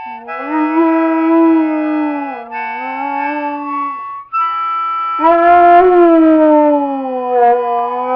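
A hound dog howling along with a harmonica's held chords: two long, wavering howls, the second starting about five seconds in and sliding slowly down in pitch.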